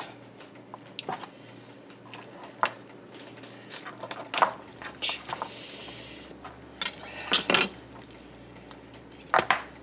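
A handful of sharp clicks and knocks, scattered over several seconds, as a knife and beef bones knock against a cutting board while a cooked beef roast is pulled apart and deboned.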